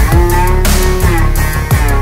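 Background music: a loud track with guitar and a steady beat.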